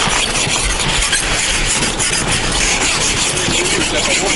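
Ice scraper scraping thick frost off a frozen car windshield in rapid, repeated strokes: a harsh, steady rasping scratch.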